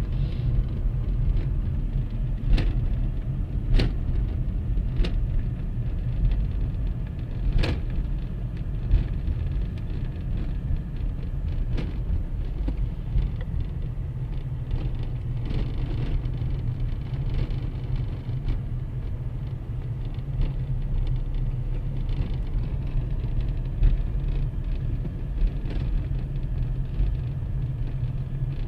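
A car driving along a road: a steady low rumble of road and engine noise, with a few sharp clicks or knocks in the first eight seconds.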